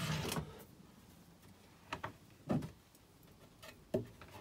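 Plywood kitchen drawer and cupboard doors being slid and pushed shut: a short sliding rumble that dies away about half a second in, then a few separate light knocks and clicks of wood on wood.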